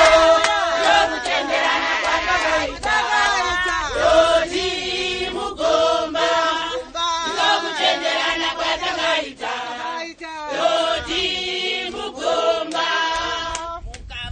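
A group of mostly women singing together as a choir, with hand claps.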